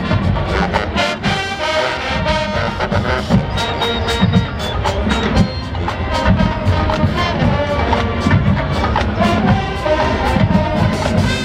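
Marching band playing: brass section with sousaphones over a steady drum beat.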